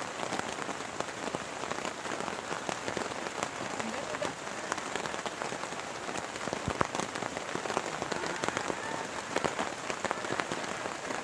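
Heavy rain falling steadily, with many individual drops pattering close by.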